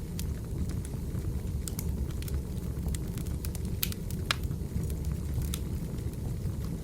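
Wood fire crackling: a steady low rumble of burning logs with irregular sharp pops and snaps, a couple of louder pops near the middle.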